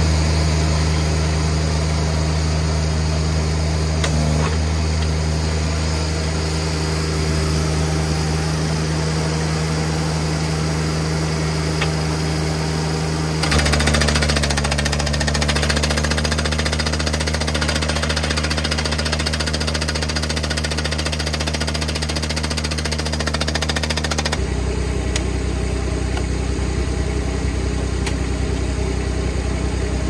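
Mini skid steer's engine running steadily. About halfway through, its hydraulic rock hammer starts pounding in rapid blows on rock at the bottom of a post hole for about ten seconds, breaking up rock too hard for the auger, then stops while the engine keeps running.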